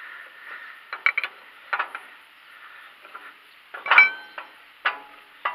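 Steel wrench and the metal parts of a YaMZ-238 oil centrifuge clinking and clanking as its loosened nut is unscrewed by hand. A few scattered clicks, then the loudest clank with a short metallic ring about four seconds in, and a couple more clinks near the end.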